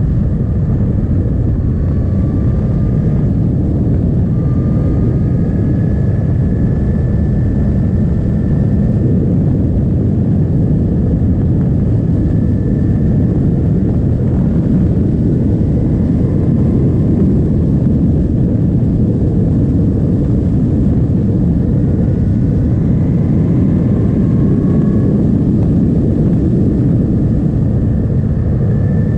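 Suzuki GSX-S 1000's inline-four engine pulling as the motorcycle is ridden at road speed. Its pitch rises several times under acceleration over a steady low rush of wind and road noise.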